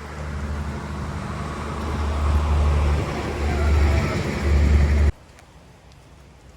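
A motor vehicle's engine rumble and road noise, growing louder as it comes close, then cut off abruptly about five seconds in.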